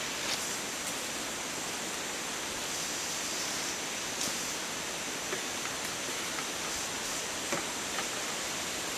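Steady, even hiss of rainforest ambience, with a few faint taps or knocks scattered through it.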